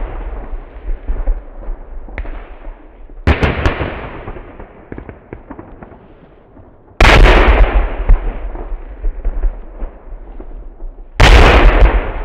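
Fireworks bursting at ground level: three loud bangs about four seconds apart, each followed by a crackling spray of sparks that fades away.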